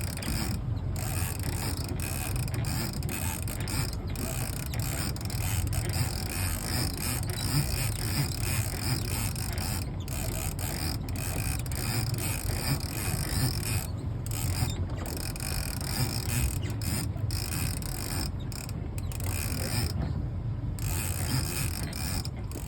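Fishing reel working continuously during a fight with a hooked fish, over a steady low rumble.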